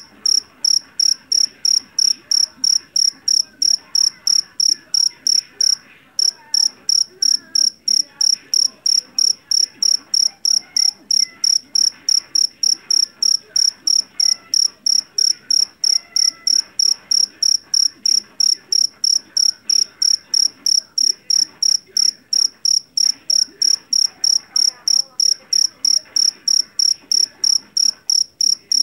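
Jeliteng field cricket (jangkrik Jawa) chirping loudly, a shrill, evenly repeated chirp about two to three times a second, with one short break about six seconds in.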